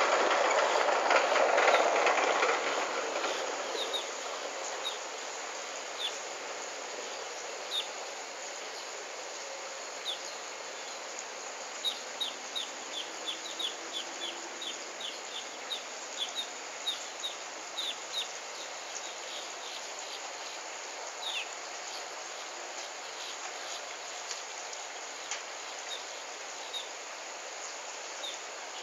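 Outdoor ambience: many short, high chirps from small birds, coming singly and in quick runs, over a steady hiss. A louder rushing noise fades away over the first few seconds.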